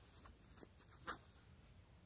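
Near silence, with a few faint ticks and one brief handling noise about a second in, as a small folding knife is drawn out of a trouser pocket.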